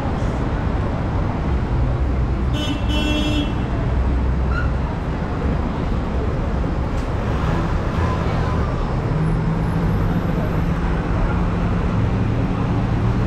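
Steady motor traffic on a busy city street: vehicle engines running and tyres on the road, with a short horn toot about three seconds in.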